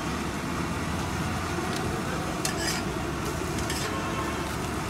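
Masala bun omelette frying in butter in a frying pan, a steady sizzle, with the metal spatula scraping and clinking against the pan a few times past the middle.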